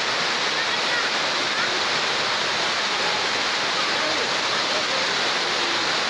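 Steady rush of water spilling down a concrete dam spillway into a shallow pool, sounding like a waterfall, with faint voices in the background.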